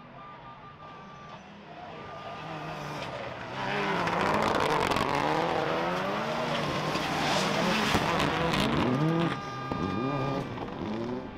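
Rallycross race car engines revving up and down through the gears as a pack accelerates toward and past, growing louder from about three seconds in.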